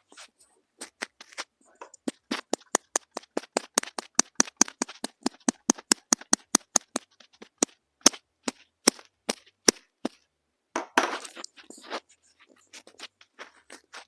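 Sharp taps or clicks made right at a small microphone, coming fast at about six a second, then slowing to a few single taps, with a short rustle near the end.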